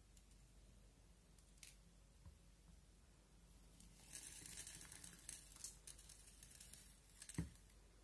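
Fine crackling and crunching of crunchy flakes pressed into clear slime, starting about halfway through, with one low thump near the end.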